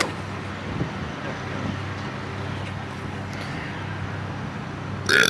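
Lawnmower engine running steadily at a distance, a continuous low hum.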